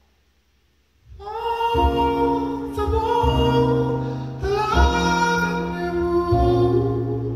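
A man singing solo in a high voice starts about a second in, over held low keyboard chords that change about every second and a half.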